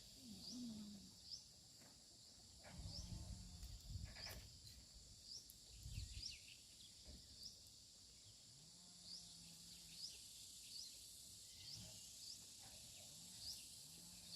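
Faint outdoor ambience: a small creature, bird or insect, gives a short, high, rising chirp about once a second, with a few low, muffled sounds now and then.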